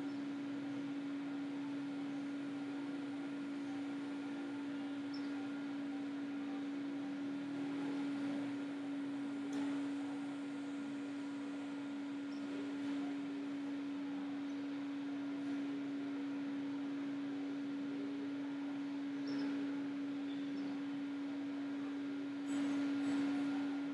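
Steady single-pitched hum with light hiss from the recording computer while a V-Ray render runs, with a few faint clicks and a short cluster of them near the end.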